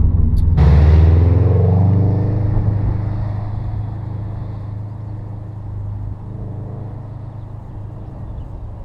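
Subaru WRX hatchback with a turbocharged flat-four passing close by and driving away. Its engine note drops in pitch and fades with the road noise. It is preceded by half a second of low in-cabin rumble.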